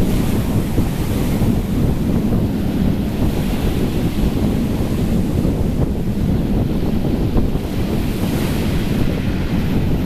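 Rough sea surf breaking and washing around a concrete pier, a steady rush of water with wind buffeting the microphone.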